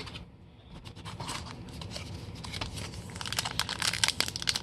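Trading card pack wrapper crinkling and tearing as it is opened: a dense run of crackles that gets busier from about a second in.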